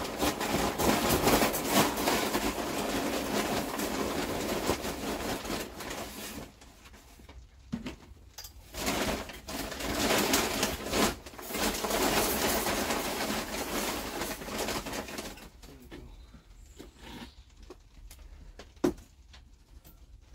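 Sandy grit being sieved through a mesh chip-basket sieve into a plastic bucket: a dense gritty rattle of stones on mesh and plastic. It runs steadily for about six seconds, comes back in three shorter bursts, then drops to light scattered clicks near the end.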